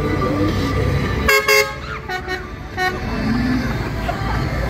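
Tractor horn honking: two loud blasts about a second in, then several shorter, quieter toots, over the low rumble of the parade tractor's engine running as it approaches.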